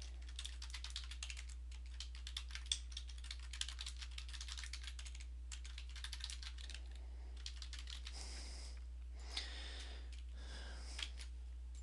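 Typing on a computer keyboard: quick runs of keystrokes that thin out in the second half, with a couple of sharper clicks near the end, over a steady low hum.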